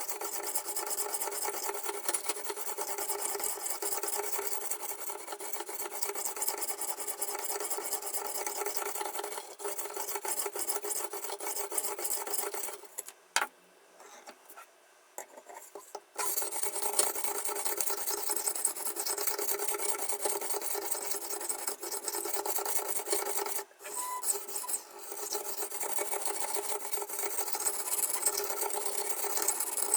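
Sharpening stone of a toohr 1.2 knife sharpener rasping back and forth along the steel edge of a kitchen knife in quick, continuous strokes. The strokes stop for about three seconds a little before the middle, and pause briefly again about two-thirds of the way through.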